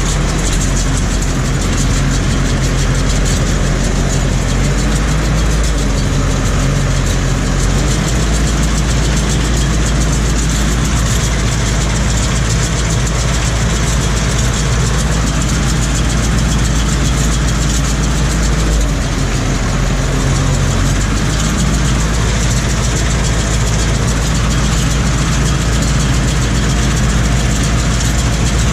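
Tractor engine running steadily, heard from inside the cab, its note shifting slightly a couple of times.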